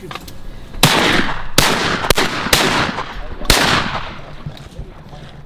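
A volley of about five shotgun shots fired at passing ducks within about three seconds, several in quick succession, each a sharp crack trailing off briefly.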